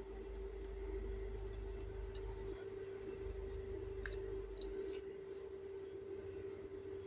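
A few faint, scattered clicks of small toy kitchen pieces being handled, over a steady low hum.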